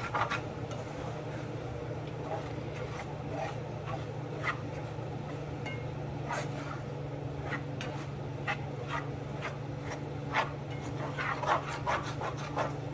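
A spatula scraping and stirring flour through chicken and mushrooms in a non-stick frying pan, in irregular strokes, over a steady low hum.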